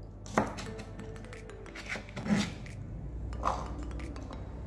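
A kitchen knife cutting shallots on a plastic cutting board, a few separate strokes, over background music.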